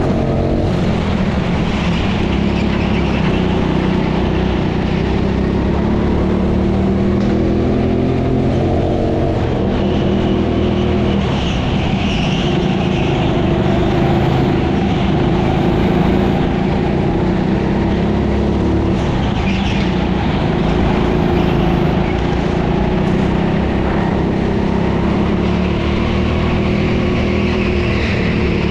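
Racing kart engine running hard, its pitch rising and falling again and again as the throttle is opened and lifted.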